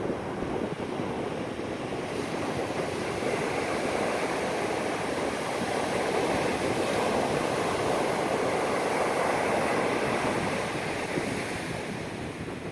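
Ocean surf breaking and washing up the beach, a steady rush that swells a few seconds in and eases off near the end as the wave spends itself.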